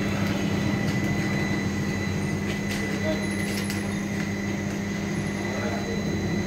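Steady machine hum with a thin, constant high whine above it, and a few faint clicks about two and a half to three seconds in.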